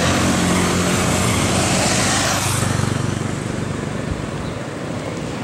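Motorcycle riding past close by: engine and road noise loudest for the first two and a half seconds, then fading as it moves away, over distant street traffic.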